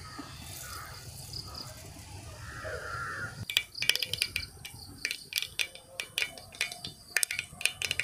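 Mustard seeds sizzling in hot sesame oil in an uruli, then starting to pop about three and a half seconds in, a quick, uneven run of sharp crackles: the oil is hot enough for the tempering.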